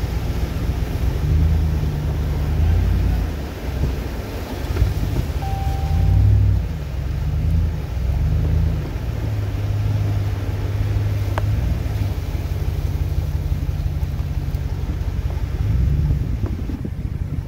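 A vehicle driving slowly through deep floodwater, heard from inside the cabin: a steady low rumble of engine and water against the vehicle that swells and eases every few seconds.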